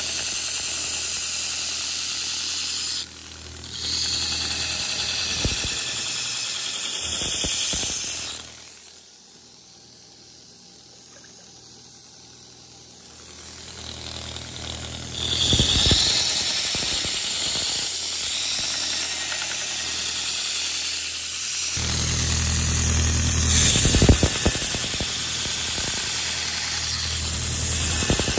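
Belt grinder with a red abrasive belt grinding the steel blade of a vintage putty knife, throwing sparks as the blade is shaped into a knife: a steady high hissing rasp. It breaks off briefly about three seconds in and falls to a faint lull for several seconds in the middle, then resumes, with a low motor hum underneath near the end.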